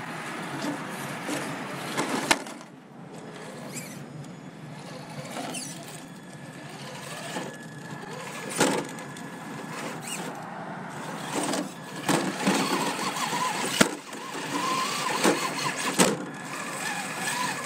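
Traxxas TRX-4 Sport RC crawler climbing over rocks: its small electric motor and gears run steadily, and its tyres and chassis knock sharply against the stone several times.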